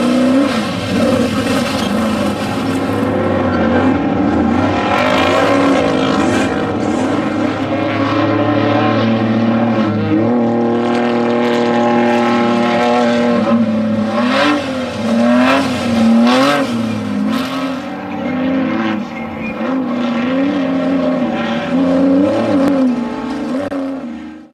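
Off-road desert race vehicle's engine running hard, its pitch swinging up and down again and again as the revs rise and fall, with a steadier held note around the middle. It fades out quickly at the very end.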